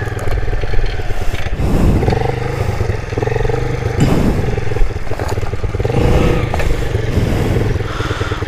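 Dirt bike engine running at low revs, the revs rising and falling in short throttle blips as the bike creeps down a steep rocky drop. Tyres and stones clatter and scrape, with a sharp knock about four seconds in.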